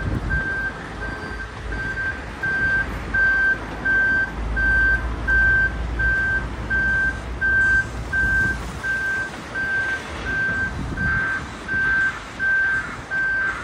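Construction plant reversing alarm beeping steadily at one pitch, about three beeps every two seconds. Diesel machine engines rumble low underneath.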